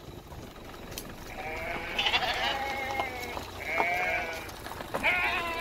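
A flock of sheep bleating: three drawn-out, quavering bleats one after another.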